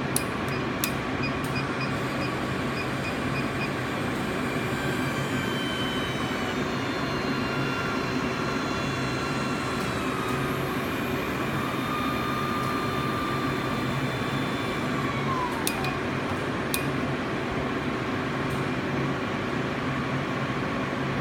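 Steady mechanical hum with a low drone, a few light clicks near the start and again about sixteen seconds in, and faint thin tones drifting through the middle.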